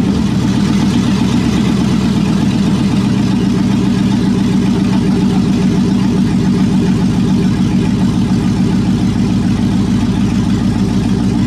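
5.3-litre LS V8 engine idling steadily on one of its first runs, with a port at the back of its intake manifold left open.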